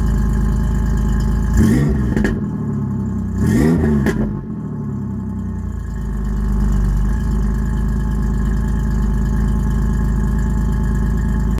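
2004 Ford Ranger's 3.0-litre V6, recently started cold, idling through stock exhaust manifolds, no catalytic converters, a three-chamber Flowmaster muffler and a 3-inch dump over the axle. It is revved twice, about two and about four seconds in, each time rising sharply and falling back to a steady idle: the before-headers baseline sound.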